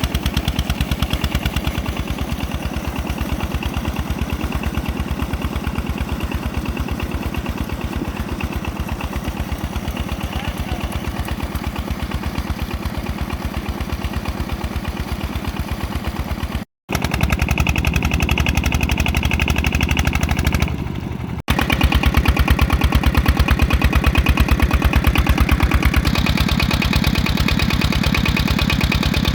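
Diesel engine of a tubewell water pump running, with a steady rapid beat of firing strokes. The sound drops out for an instant about two-thirds of the way through and comes back abruptly louder a few seconds later.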